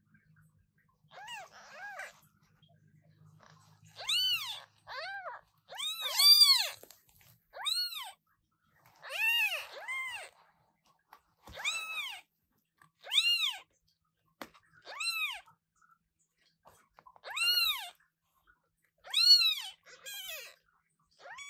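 New British Shorthair kittens meowing very loudly, over and over. They give high, thin calls whose pitch rises and then falls, often two in quick succession.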